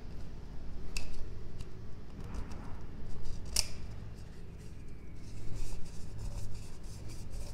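Gloved hands working a plastic oil filter housing cap and its O-ring. There are light rustles and small ticks, a sharp click about a second in and a louder click about three and a half seconds in, over a steady low hum.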